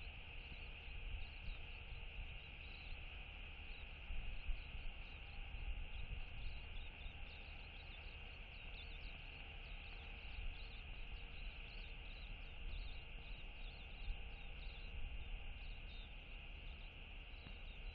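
Open-air ambience from a fixed outdoor microphone: a fluctuating low rumble of wind on the microphone under a steady high chirring, with many short, faint chirps flickering above it.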